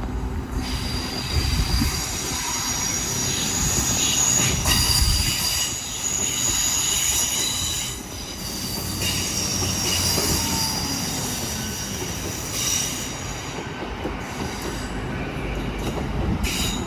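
Train's wheels squealing on the rails over a low rumble. The high-pitched squeal fades and returns several times.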